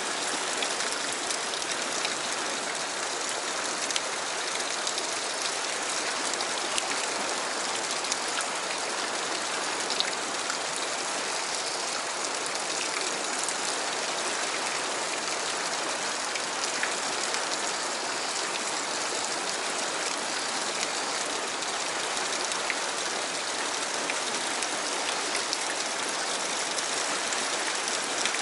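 Fast river current rushing and churning over rocks as white water, a steady hiss with a few faint ticks.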